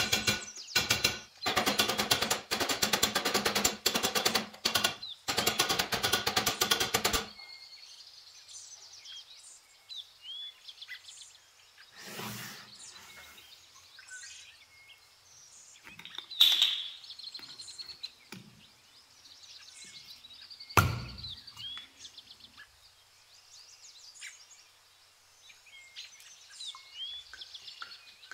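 A rapid mechanical rattle in several loud bursts, then birds chirping in the background, with a single thump about two-thirds of the way through as a glass bowl is set down on a wooden table.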